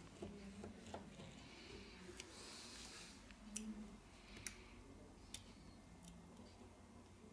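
Metal tweezers clicking and scraping faintly against the small parts and connectors inside a smartphone: a soft scrape, then a few sharp clicks over the second half.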